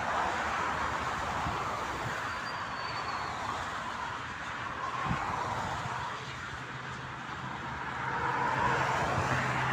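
Motorway traffic going past: a steady rush of tyre and wind noise from passing vehicles, with an engine's low drone building up and growing louder over the second half.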